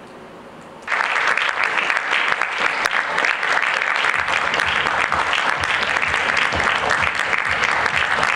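Theatre audience applauding, bursting in suddenly about a second in and carrying on as dense, steady clapping.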